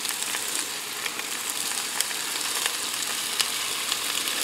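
Red onion rings sizzling in hot olive oil in the bottom of a multicooker pot: a steady sizzle with scattered small crackles.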